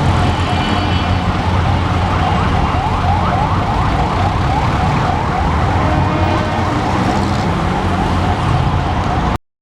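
A vehicle siren yelping in quick, repeated rising sweeps over a heavy, low engine rumble of passing traffic; it all cuts off suddenly near the end.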